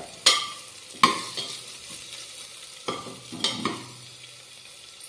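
A spoon scrapes and stirs potatoes and cauliflower frying in ghee in a pressure cooker, four sharp scrapes against the pot over a faint sizzle.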